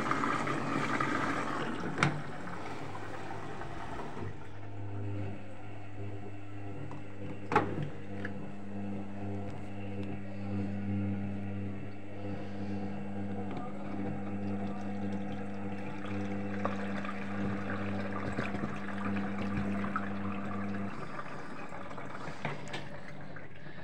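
Arçelik 3320 SA washing machine taking in water for the wash: water rushing, then a steady electric hum from about four seconds in that cuts off a few seconds before the end, with a couple of sharp clicks.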